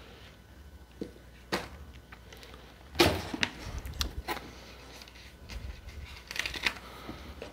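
Unboxing handling noises: scattered taps, knocks and rustles as plastic-bagged accessories are handled and set down. The loudest knock comes about three seconds in, and a short cluster of rubbing and scraping near the end comes as a hand touches the box's polystyrene insert.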